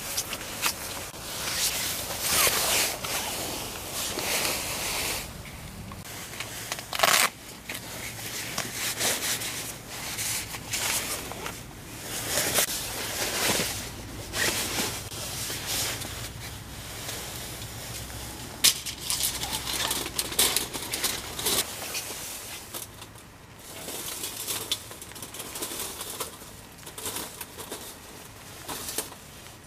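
Thin folding metal windscreen being slid out of its cloth case and unfolded panel by panel: irregular rustling and scraping, with sharp metallic clicks about 7 and 19 seconds in.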